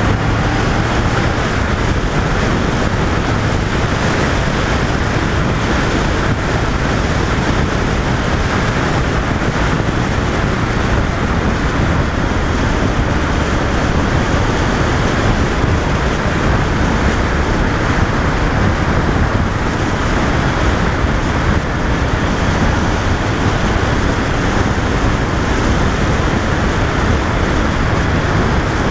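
Steady wind rush on the microphone of a camera riding on a moving 2005 Honda VFR800 motorcycle, with the bike's running and road noise underneath.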